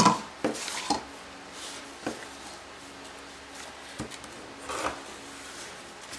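Ribbon rustling as it is pulled off its spool and handled, with a few sharp taps and clicks from the rotary cutter and hands on the plastic cutting mat; the loudest click comes right at the start.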